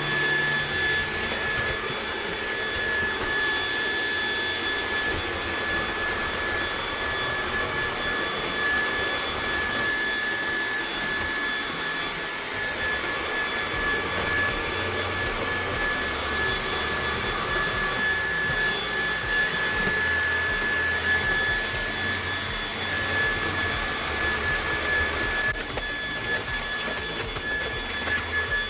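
Trifo Emma Pet Essential robot vacuum running: a steady suction whir with a constant high-pitched whine over it.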